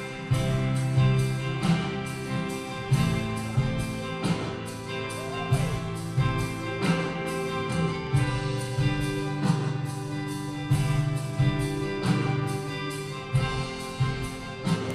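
Band music with electric guitars and a steady, even drum beat.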